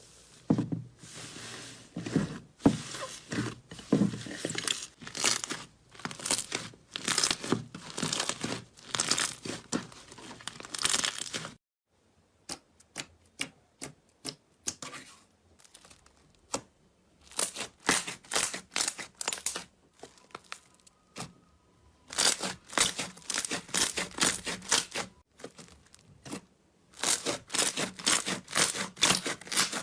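Slime being squeezed and kneaded by hand, giving crackling, popping bursts in quick rhythmic runs. About halfway through it thins to scattered single pops, then the squeezing bursts return.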